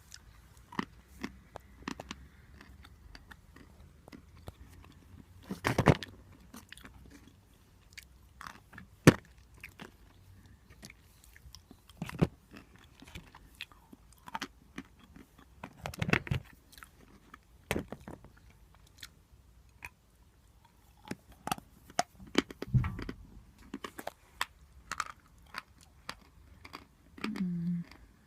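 A person biting and chewing lumps of natural chalk close to the microphone: irregular sharp crunches and clicks, with a few louder bites several seconds apart. A brief low hum comes near the end.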